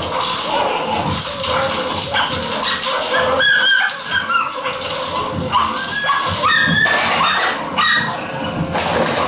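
Belgian Malinois puppies, about seven weeks old, yipping and whining in many short high calls, with scattered knocks and clatter.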